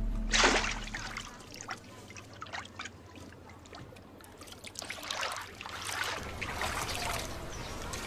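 Water in a shallow tank splashing once about half a second in, then trickling and dripping, with more sloshing from about five seconds in as hands reach into the water.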